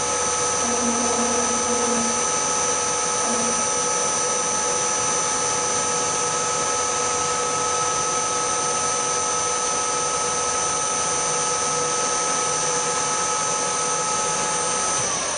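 Milling machine spindle running steadily with a constant whine while a drill bit is fed down to drill the first hole of a bolt-hole circle in a dial. Near the end the whine falls in pitch as the spindle slows.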